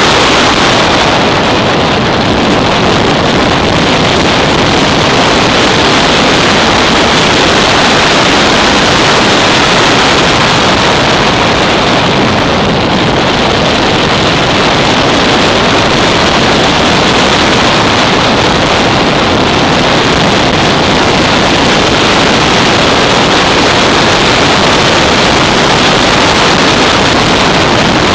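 Loud, steady wind rush over the microphone of a Yamaha SR 500 motorcycle at road speed, with the bike's single-cylinder four-stroke engine running underneath.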